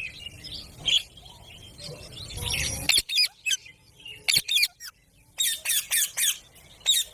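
Green parrot giving a run of short, high squawks and chirps in quick clusters, with a louder, noisier burst about two and a half seconds in.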